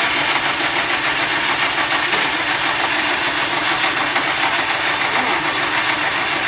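Briggs & Stratton electric-start engine on a Murray riding mower, cranked by its starter motor and turning over steadily without catching. The owners take the no-start for the ignition timing being off.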